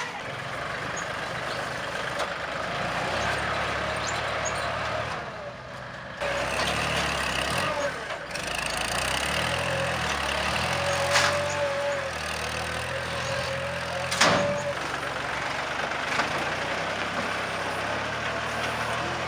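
Engine of a heavy truck or road-work machine running steadily. A sharp knock comes about eleven seconds in and a louder one about fourteen seconds in.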